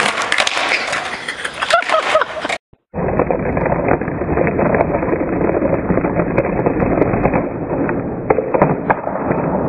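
Skateboard wheels rolling on concrete, with sharp clacks and knocks of the board. The sound cuts out briefly a little under three seconds in, then resumes duller and more muffled.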